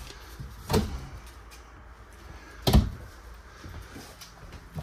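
Cabinet doors being opened and shut: three knocks about two seconds apart, the middle one the loudest.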